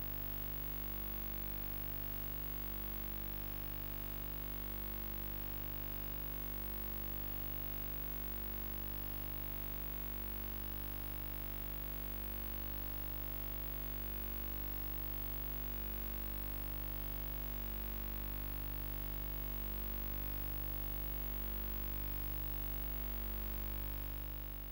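Steady electrical hum and buzz with no other sound, unchanging throughout and fading out near the end.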